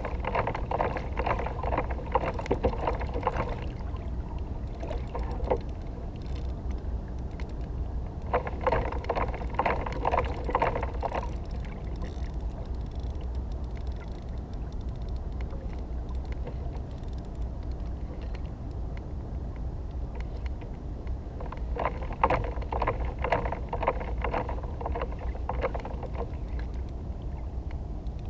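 Spinning reel clicking rapidly in three spells, at the start, about eight seconds in and again about twenty-two seconds in, while a hooked cobia is being fought on a bent rod. A steady low rumble runs underneath.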